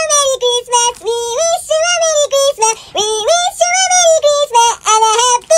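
A high, synthetic-sounding singing voice carrying a quick melody of short notes, many of them sliding up into the next.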